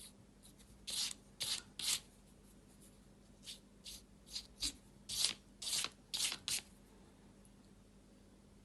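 Short rubbing strokes on paper, about a dozen quick swishes in two runs, as acrylic paint is worked into grain lines by hand and brush. The strokes stop about two-thirds of the way in.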